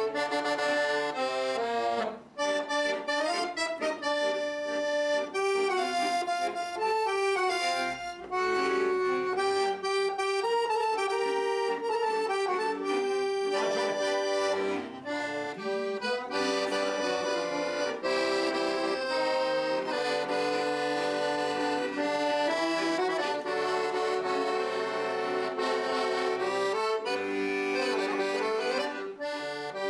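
Two piano accordions playing a tune together in a duet, sustained reed notes under a moving melody, with a brief pause about two seconds in.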